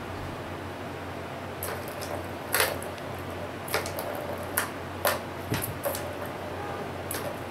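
A kitten batting the balls in a plastic tower-of-tracks cat toy: a string of irregular plastic clicks and clatters, the loudest about two and a half seconds in, over a steady hiss.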